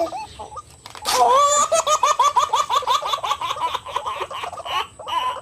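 White-breasted waterhen (ruak-ruak) calling: a fast, loud run of repeated chattering notes that starts about a second in and fades out near the end.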